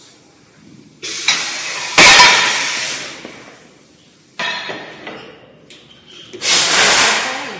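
Three sudden bursts of hissing, rushing noise with clinks, each fading over a second or two, from a plastic dropping machine line as a metal mould comes off the oven's roller conveyor onto the flat cooling plate.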